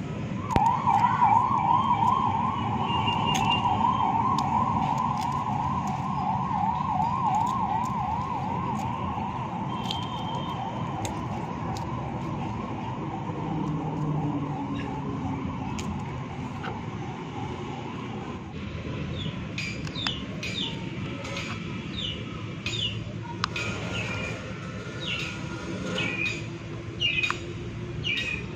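An electronic siren warbling rapidly up and down, loudest about a second in and slowly fading until it stops about two-thirds of the way through. After it, baby chicks peep over and over in short, falling chirps.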